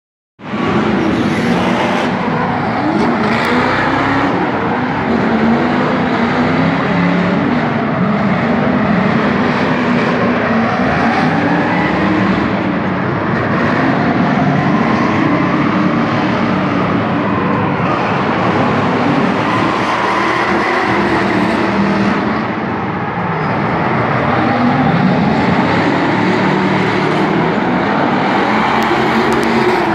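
Drift cars' engines revving hard, the pitch rising and falling over and over as the cars slide through the corners in a tandem run.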